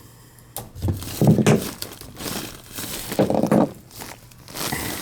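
Rustling, crinkling and scraping from parts being handled during work on an AC condensate drain line, in four uneven bursts.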